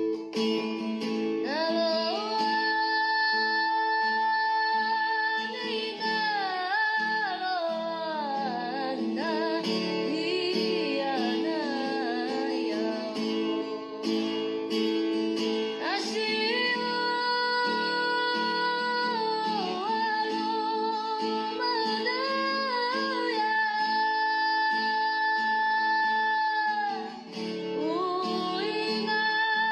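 Background music: acoustic guitar accompaniment under a held, wavering vocal melody sung by a woman.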